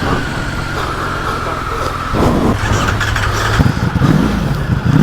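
Motorcycle engine running, its note changing about two seconds in.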